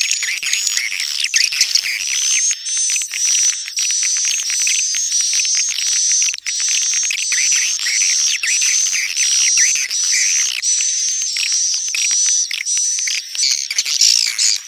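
Swiftlet calling sound: a dense, unbroken chatter of high twittering chirps that repeats about twice a second. This is the lure call played to draw swiftlets into a nesting house.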